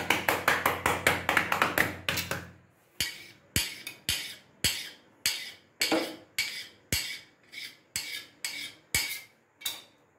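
Knife blade striking a stone countertop as it cuts a rolled sheet of paratha dough into strips: a quick run of clicking taps over a low hum for the first few seconds, then about a dozen sharp, evenly spaced strikes, roughly two a second.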